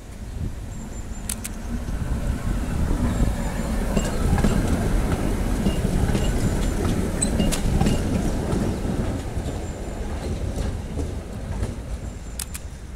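PCC series 7700 tram running on its rails, growing louder to a peak in the middle and then fading. Its steel wheels give a few sharp clicks over rail joints.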